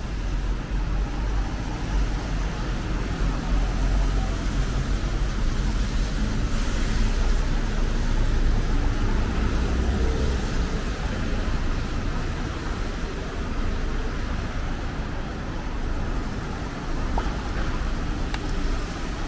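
Road traffic on a wet city street: a steady rumble of passing cars and buses with tyre hiss, swelling briefly about seven seconds in.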